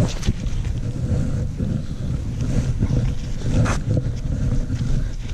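Wind buffeting the microphone, a steady low rumble, with a short scraping noise about three and a half seconds in.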